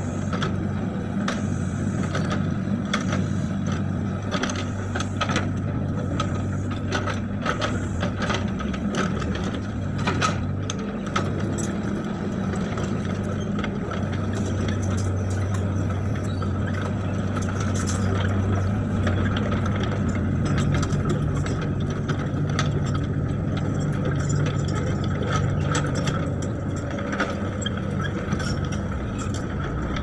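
Hitachi mini excavator's diesel engine running steadily under working load, with frequent metallic clanks and rattles from the bucket, arm and tracks as it works the soil; the clanking is densest in the first half, and the engine note shifts about two-thirds of the way in.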